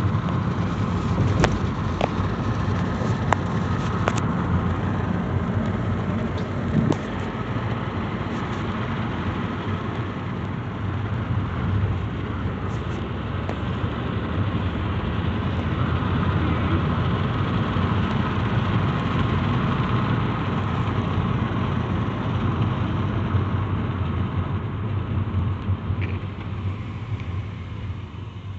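Steady low vehicle rumble heard from inside a car, with a few light clicks in the first few seconds.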